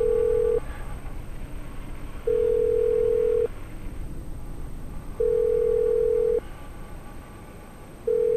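Telephone ringback tone, the ringing heard while waiting for a call to be answered: a steady beep of about a second, repeating roughly every three seconds.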